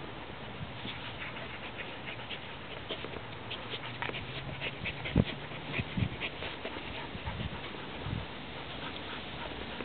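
Bearded Collie puppy's paws scraping and scratching at loose sandy soil as it digs, with a dog panting. A few dull thumps come between about five and eight seconds in, the first of them the loudest.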